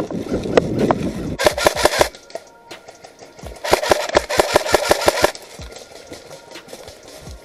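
Airsoft rifle firing on full auto in two rapid bursts of clicks, a short one about a second and a half in and a longer one around four to five seconds in. Rustling movement through leaf litter comes before the first burst.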